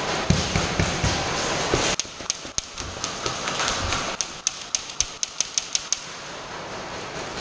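Airsoft gunfire in an indoor arena: a run of sharp clicking snaps from shots and BB hits, scattered at first and then quicker for a second or so. Before it, for about two seconds, close rustling and handling noise.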